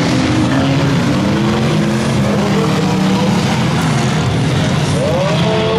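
A pack of demolition derby cars driving around a short oval track, many engines running at once, their pitches rising and falling as the cars speed up and slow down.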